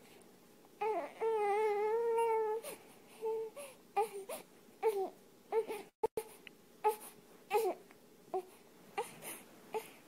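High crying calls: one long wavering cry about a second in, then a string of short cries at uneven intervals.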